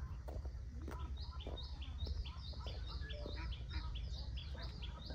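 A bird calling a fast, even run of short chirps, alternating a higher and a slightly lower note about four or five times a second, starting about a second in, over a low rumble.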